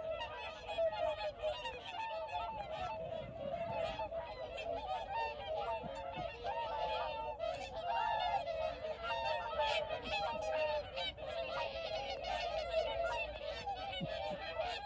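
A large flock of whooper swans calling without a break, many overlapping honking calls.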